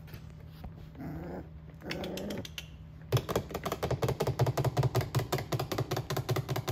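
Mini goldendoodle puppies vocalizing: two short whines, then, from about three seconds in, a rapid pulsing growl of about nine pulses a second.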